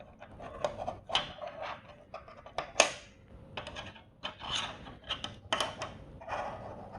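A 6.25u mechanical-keyboard spacebar being pressed and released again and again, each stroke a sharp clack with a short rattle, unevenly spaced.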